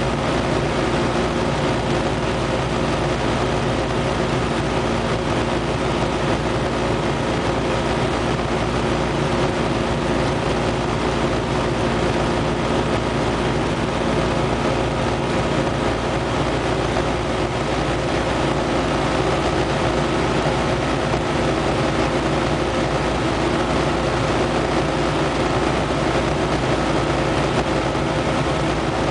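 Light single-engine propeller aircraft's piston engine and propeller running steadily in level flight, heard from inside the cockpit as a constant drone over rushing air.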